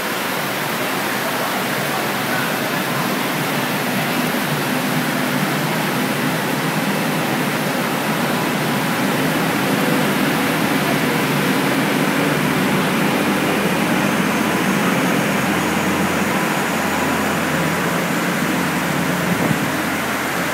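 Heavy rain pouring steadily onto the station platform and its canopy roof, an even rushing downpour, with a faint low hum underneath from about halfway in.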